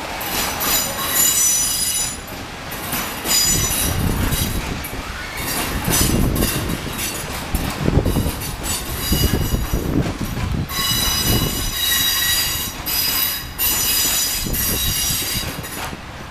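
Freight train of open coal wagons rolling past, its wheels squealing in several high steady tones that come and go over a low rumble.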